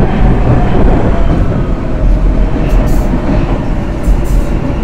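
Vienna U-Bahn U1 metro train pulling into an underground station, a loud continuous rumble of wheels on rails with a faint whine, and two short hisses near the end.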